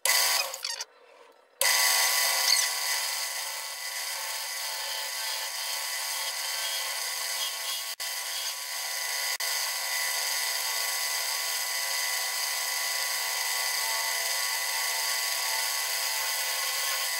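Wood lathe running steadily while a hardwood bowl is turned on it. The machine noise comes in abruptly about a second and a half in, after a brief noise and a short near-quiet gap.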